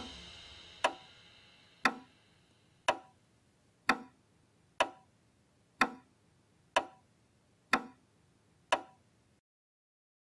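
Clock ticking, about one tick a second, ten ticks in all. At first the ticks sound over the fading tail of a low drum hit. The ticking cuts off suddenly a little over nine seconds in.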